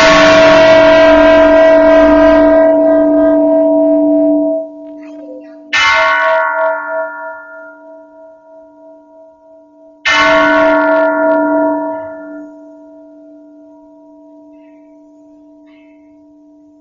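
Bronze bell struck three times, a few seconds apart, each strike ringing on in a steady low hum that fades slowly. The first ring drops away sharply after about four and a half seconds, and the last dies away gradually over several seconds.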